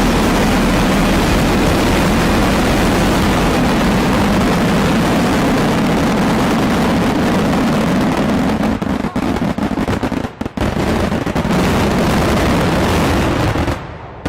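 Fireworks going off in a dense, continuous barrage that blends into one loud roar, breaking up briefly about two-thirds through and stopping abruptly just before the end, leaving a short fading echo.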